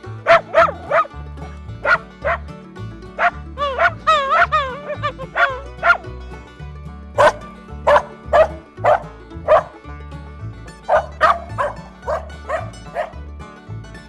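Dog barking in a run of short, sharp barks, with a few wavering, whining cries about four seconds in, over background music with a steady bass line.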